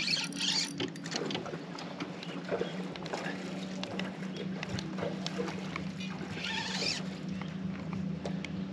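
Spinning reel being cranked in quick ticking turns while a hooked fish is fought on the rod from a kayak, with a steady low hum under it.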